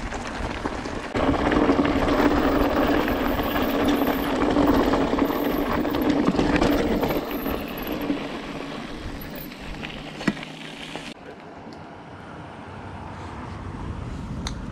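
Mountain bike riding over a gravel and dirt trail: steady tyre noise, louder from about a second in and fading away after the middle, with a single sharp click near the end.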